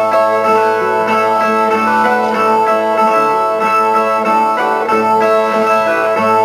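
Brazilian viola, the ten-string folk guitar of repentistas, playing a plucked instrumental introduction, with held ringing notes under the plucked melody.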